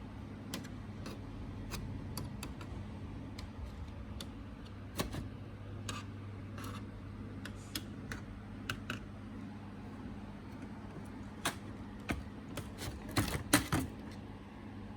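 Scattered light clicks and taps of hands and tools on a Dell Vostro 3450 laptop's case and parts during disassembly, over a steady low hum. A quick run of louder clicks comes near the end.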